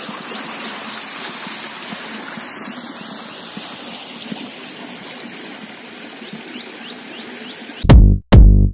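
Muddy water rushing steadily along a concrete drain channel. Near the end it cuts off abruptly into loud electronic music with heavy beats.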